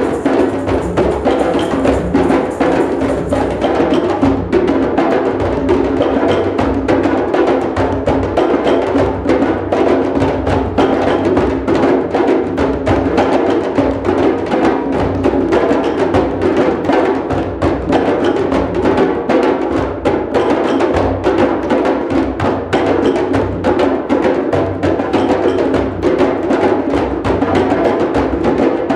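A drum circle of hand drums and other percussion playing together, with dense, overlapping strikes in a steady, unbroken groove.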